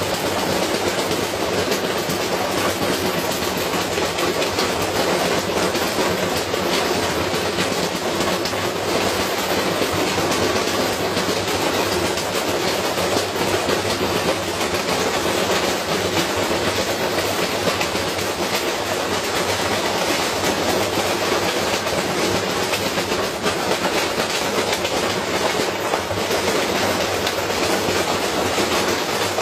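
Washing machine running with a heavy object loaded inside, its drum and cabinet rattling and knocking in a dense, continuous clatter as it is deliberately run to destruction.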